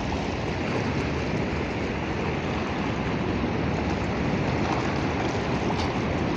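Steady rushing of small waves washing over a shallow, stony sea shore, mixed with wind.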